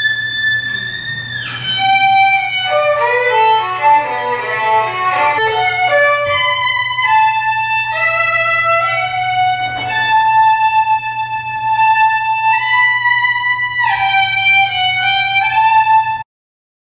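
Violin music playing from a laptop: long held notes, a quick run of shorter notes from about three to six seconds in, then more long held notes, stopping suddenly just before the end.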